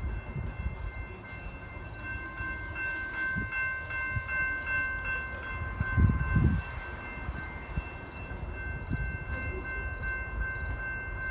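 Railroad grade-crossing warning bells ringing steadily, about two dings a second, over a low outdoor rumble, with a louder low gust about six seconds in.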